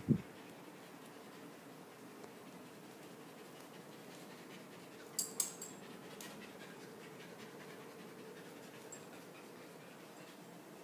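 Samoyed puppy panting steadily, with a short low thump right at the start and a few sharp clicks about five seconds in.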